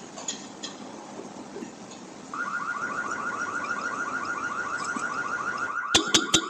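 Car alarm going off: a loud, fast-repeating sweeping chirp starts about two seconds in, about ten sweeps a second. Near the end it switches to sharp, loud beeps.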